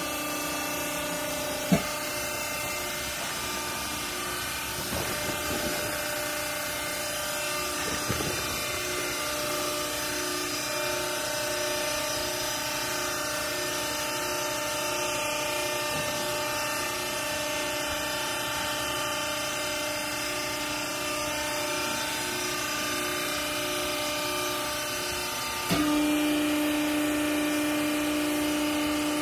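Vertical hydraulic baler's power unit running: a steady motor-and-pump hum, with a few knocks. Near the end the hum suddenly gets louder and one low tone grows stronger.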